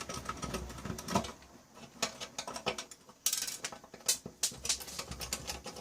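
Hand disassembly of electronic test equipment: irregular small clicks and rattles of a screwdriver and metal hardware being worked loose, with a denser run of rapid clicking a little past three seconds in.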